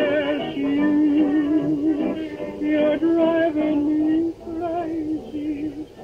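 Music from a 1920s antique cone speaker driven from an iPad through a headphone amp: an old-time song's melody line wavering with vibrato, thin with little bass or treble, fading near the end.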